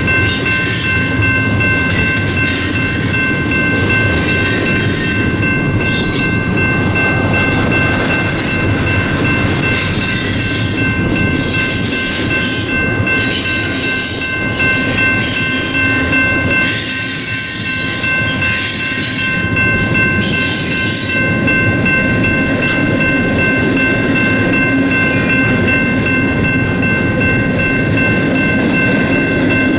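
Freight train's covered hopper cars rolling past at speed: a steady rumble of wheels on rail with a dense rattling clatter over it. Several steady high-pitched tones sound above it.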